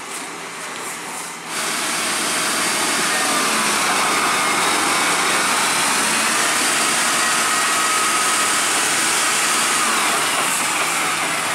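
Heavy diesel engine of a UD Quester dump truck pulling under load as it crawls over broken road close by, growing suddenly louder about a second and a half in and then holding steady, with a faint wavering whine over the engine.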